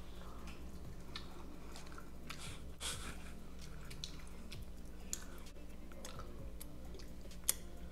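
A person chewing a bite of cooked salmon, with soft mouth clicks and smacks and one sharper click near the end, over a low steady hum.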